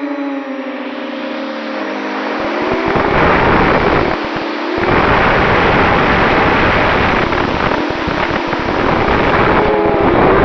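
Small FPV quadcopter's electric motors and propellers whining, the pitch sliding up and down with throttle. For most of the middle, a loud rushing noise like wind over the microphone drowns the whine, and the whine comes back clearly near the end.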